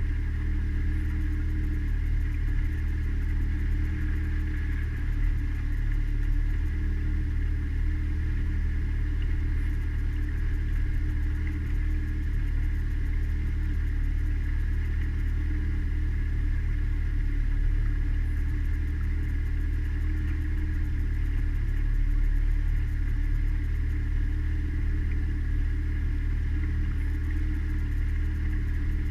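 Mariner outboard motor on a small cabin cruiser running at a constant speed under way, an even drone that holds the same pitch throughout.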